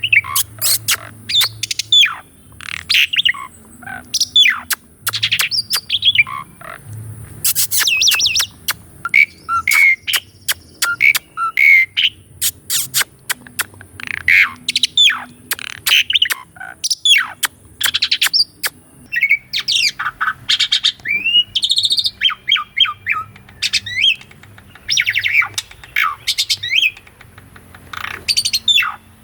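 Asian pied starling singing a long, varied song: a rapid string of whistles, rising and falling sweeps and sharp clicking notes with hardly a pause.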